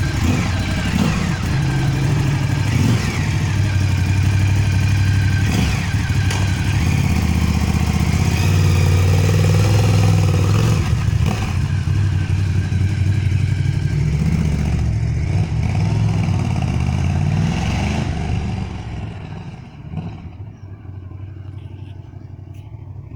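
Ducati Scrambler 1100's stock air-cooled L-twin engine running through the standard exhaust, its note rising and falling. Near the end it becomes markedly quieter and duller but keeps running.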